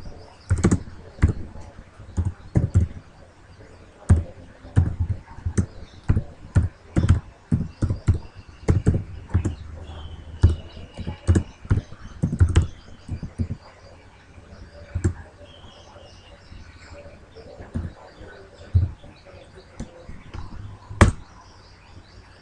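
Typing on a computer keyboard: irregular runs of keystrokes with short pauses between them. One louder key strike comes near the end, as the command is entered.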